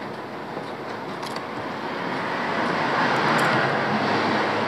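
Steady rushing background noise that swells to a peak about three seconds in and then eases, with a few faint ticks over it.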